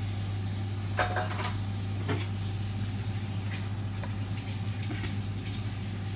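Steady low electrical hum with an even hiss over it, and a few light clicks about one and two seconds in as rigatoni are handled in a glass bowl.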